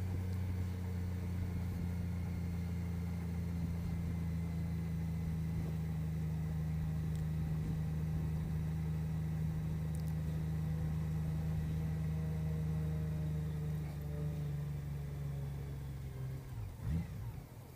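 Honda CBR600RR inline-four engine running at a steady low speed. Near the end it falters and dies away, the engine cutting out as the bike stalls while braking.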